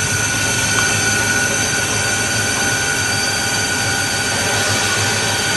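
Robland Z-250 sliding table saw running at speed with no cut being made, its motor and belt drive spinning. The sound is a steady whine held at an even level over a broad rush of noise.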